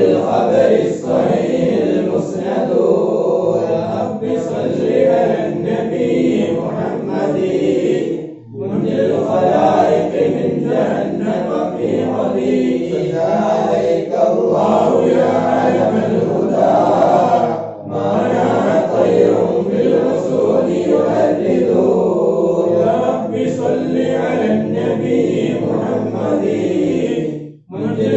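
Group of men chanting Arabic Mawlid verses in unison without accompaniment, in long phrases of about nine seconds, each ending in a brief pause for breath.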